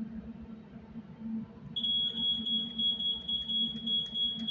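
A high-pitched electronic horn sounding one long, steady beep that starts a little under two seconds in and is held to the end.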